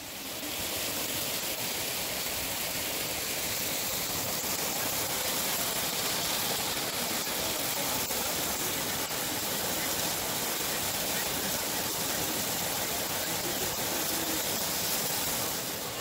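Small waterfall of warm geothermal stream water pouring over a rock ledge into a pool: a steady splashing rush of water.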